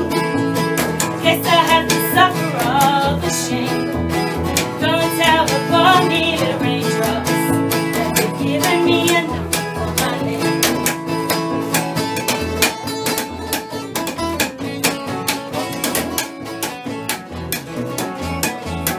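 Live acoustic guitar strumming and plucked double bass playing an instrumental passage of a country song, with a wavering melody line over them for roughly the first six seconds.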